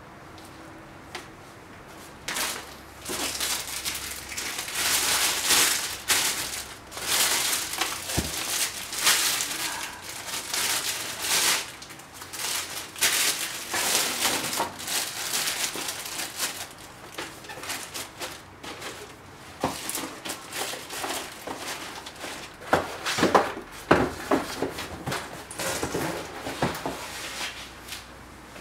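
Clear plastic bag crinkling and rustling in irregular bursts as sneakers are wrapped and packed into a cardboard shoebox, starting about two seconds in. Sharper knocks come near the end as the box is handled and closed.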